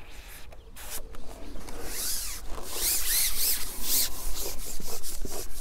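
Carbon fishing pole being shipped out, its sections sliding and rubbing through the angler's hands: a rough rubbing hiss that gets louder about two seconds in.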